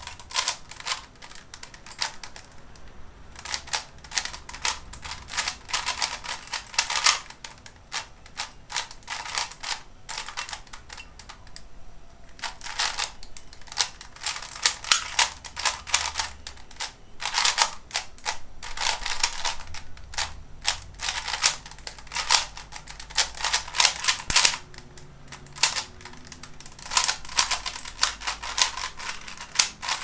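Plastic Type C DIY 3x3 speed cube being turned fast during a timed solve: rapid clicking and clacking as the layers snap round, in bursts with short pauses between.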